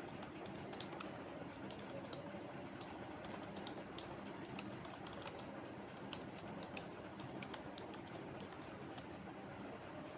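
Typing on a computer keyboard: quick, irregular key clicks, over a steady low background hum.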